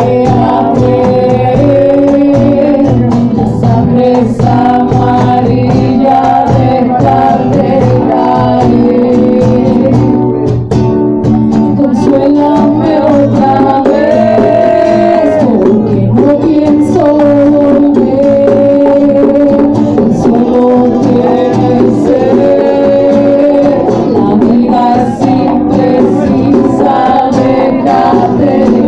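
Live band playing a song: a singer's voice over strummed acoustic guitar and percussion, loud and continuous.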